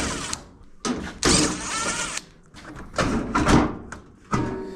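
A GE electric dryer's cabinet part being taken off and handled: several bouts of scraping and clunking of metal and plastic, the longest and loudest about a second in.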